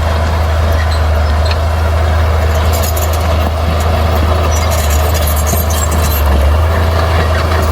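Bulldozer's diesel engine running steadily with a deep low rumble, with scattered sharp clanks and scrapes for a few seconds mid-way.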